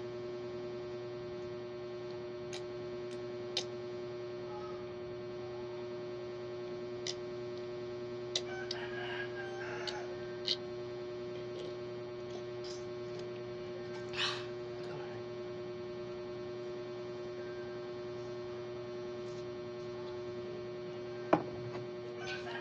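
A steady electrical hum, with a few faint clicks and two brief soft noises about nine and fourteen seconds in.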